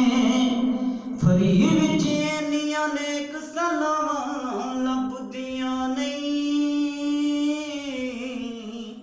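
A man singing long, drawn-out notes into a handheld microphone, his voice sliding between pitches with no clear words. The phrase fades out just before the end.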